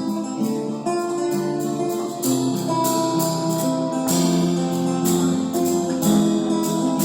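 Instrumental music with sustained chords and quick, frequent note attacks.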